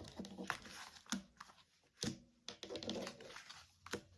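Tarot cards being handled on a table: a scatter of light clicks and snaps as cards are drawn and laid down, spaced irregularly about half a second to a second apart.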